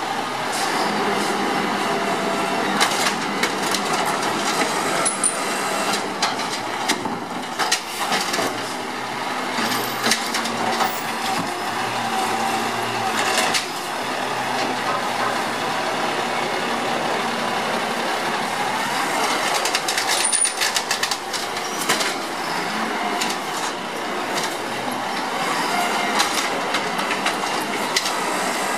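Automated side-loader garbage truck at work: the engine runs steadily while the hydraulic arm grips, lifts and dumps wheeled garbage carts, with repeated irregular knocks and clatter from the carts and arm.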